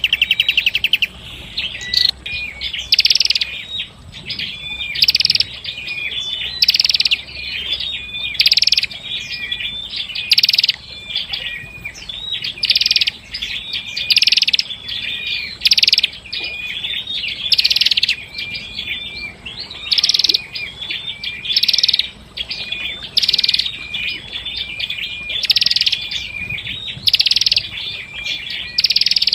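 Prenjak kepala merah (red-headed prinia/tailorbird) singing, repeating a loud, dense phrase about every two seconds with short whistled notes between the phrases.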